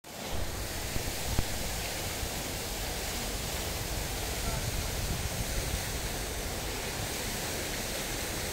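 Steady rushing of fountain water splashing into a stone basin, heard as an even outdoor noise, with one short knock about a second and a half in.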